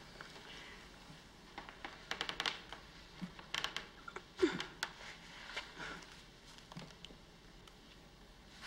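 Quiet, close rustling and small clicking sounds of movement, with a short low murmur about four and a half seconds in.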